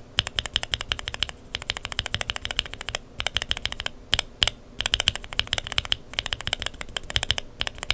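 Lubed linear mechanical keyboard switches with Kailh Burgundy stems clacking as they are pressed and bottomed out rapidly, in fast runs broken by a few brief pauses.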